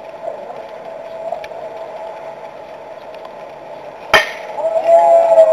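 A single sharp crack about four seconds in, the impact of a pitched baseball, followed by players calling out. Before it there is only low, steady background sound from the field.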